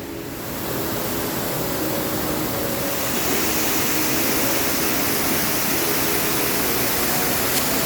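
Steady rush of falling water from a waterfall, an even hiss with no rhythm, growing louder about half a second in and again around three seconds in.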